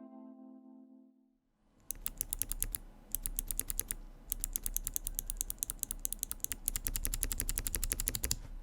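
Fast typing on a mechanical keyboard: rapid keystroke clicks in three runs with short pauses, after a held music chord fades out about a second in.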